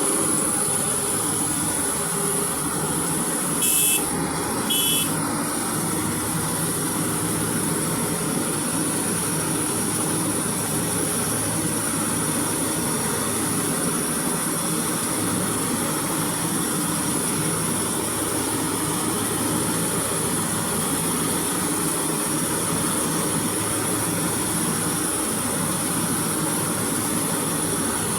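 Rice combine harvester running steadily with a constant high whine. Two short higher-pitched sounds come through about four seconds in.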